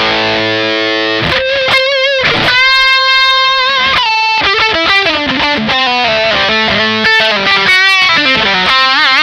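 Electric guitar played through a Vox StompLab modelling pedal set to a distorted drive tone. A chord rings out first, then sustained lead notes with wide vibrato and bends, followed by a line of notes stepping downward and more bends near the end.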